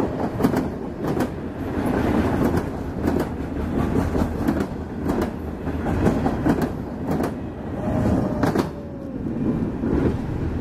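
Freight train of loaded flatcars rolling past, steel wheels on rail in a steady rumble, with sharp clicks, often in close pairs, as wheelsets cross rail joints. The end of the train goes by near the end.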